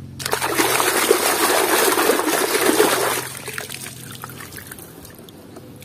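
Muddy water sloshing and splashing in a plastic basin as a toy truck is swished through it by hand, for about three seconds. Then a few faint drips as it is lifted out.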